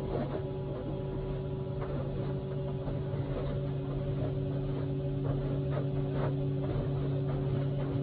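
A machine running steadily with an even, constant hum, with a few faint light knocks over it.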